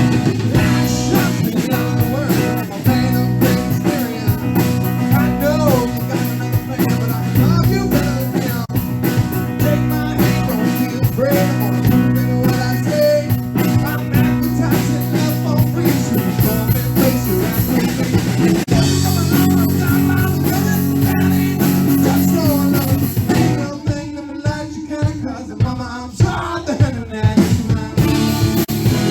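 Live rock band playing with guitar and drum kit. The sound thins for a few seconds near the end, then the full band comes back in.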